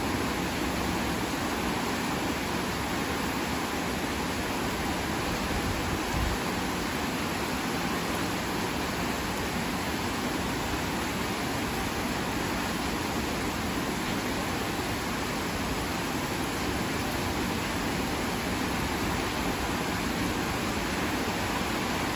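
Heavy rain falling steadily in a dense downpour, an even hiss, with a brief low thump about six seconds in.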